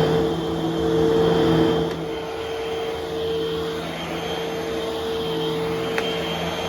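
Upright vacuum cleaner motor running steadily with an even hum, a little quieter from about two seconds in.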